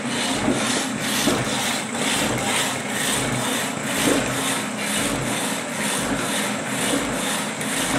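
Marvel No. 2 draw-cut power hacksaw cutting a metal bar, its blade rasping back and forth at about two strokes a second over the steady hum of the electric motor driving it. The saw runs slower than it should because it is driven through a gear-reduction motor rather than its line shaft.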